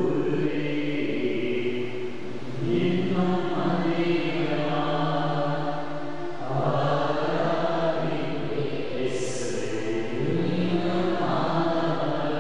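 A man's voice chanting a devotional hymn in long, held phrases of a few seconds each, amplified through a microphone.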